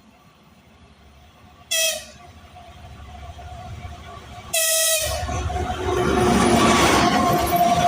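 A 2TE116U diesel freight locomotive sounds two short horn blasts about three seconds apart. After the second blast the diesel engine and rolling wheels swell into a loud, steady noise as the train comes close.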